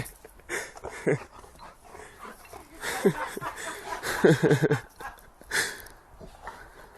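A dog vocalizing in short cries that fall in pitch, with a cluster of them about four seconds in.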